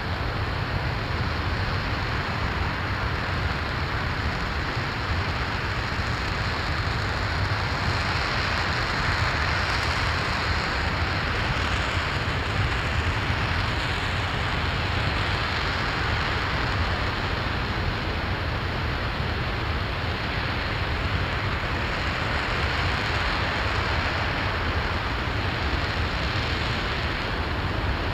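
RS-25 liquid-hydrogen/liquid-oxygen rocket engine running steadily during a static hot-fire test: a continuous, even rush of noise over a deep low rumble, with no change in level.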